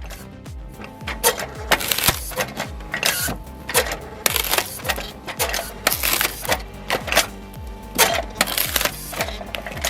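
Sharp, irregular clacks and clatter from a homemade hydraulic wood-cutting machine working through logs, starting about a second in, over background music with a steady beat.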